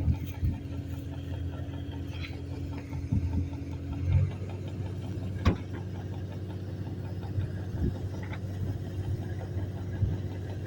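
Heavy farm machinery engine, likely a combine harvester at wheat harvest, running steadily with a low even hum. A higher steady tone drops out about four seconds in, and a few short knocks and clicks sound over it.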